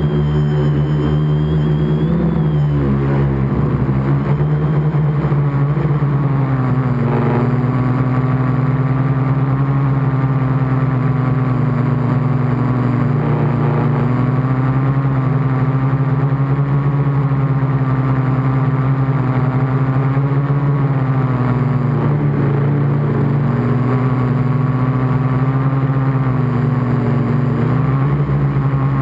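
Gaui 500X quadcopter's brushless motors and propellers in flight, heard close from its onboard camera: a steady loud buzzing hum whose pitch wavers slightly with throttle corrections, dipping briefly near the start and again near the end.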